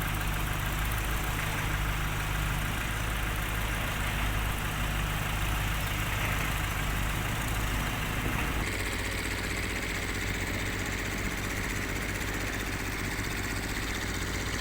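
An engine running steadily, with a low hum. About nine seconds in, its sound changes abruptly.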